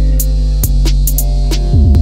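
Background music: a steady low bass under light percussion ticks, with a loud bass line of short falling, sliding notes coming in near the end.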